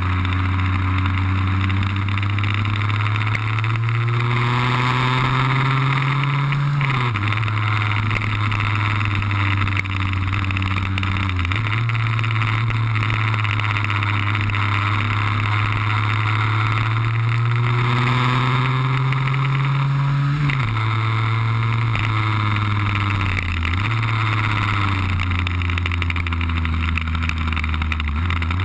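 Onboard sound of a Lambretta cut-down's RB20 two-stroke engine under way: the note climbs slowly through a gear and drops sharply at each gear change, about seven and twenty seconds in, with further shifts near the end. A steady wind rush on the microphone runs underneath.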